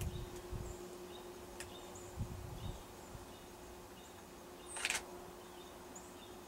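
Faint handheld-camera handling noise in quiet woods: low bumps and a single click, with repeated faint high chirps. A short rushing hiss comes about five seconds in.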